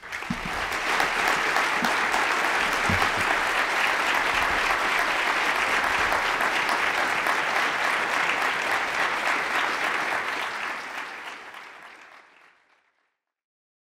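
Audience applauding steadily, fading away over the last few seconds.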